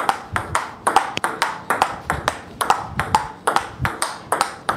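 Table tennis rally: the celluloid-type ball clicking sharply off the rubber bats and bouncing on the table in a quick, even rhythm of several clicks a second.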